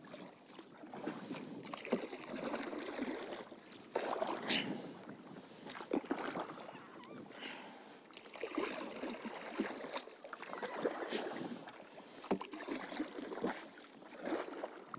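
Kayak paddle dipping and pulling through still pond water, soft splashing and dripping in repeated strokes about every two seconds.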